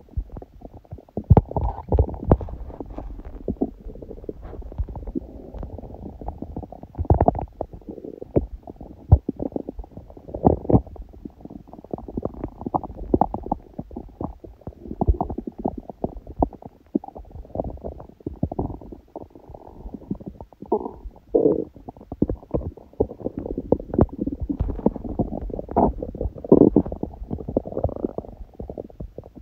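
An empty, hungry stomach growling: a continuous low rumble with many irregular gurgles and bubbling pops.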